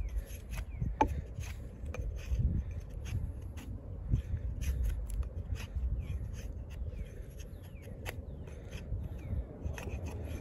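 Kobalt 14-inch camp axe bit shaving curls off a stick of wood: a string of short, irregular scraping strokes.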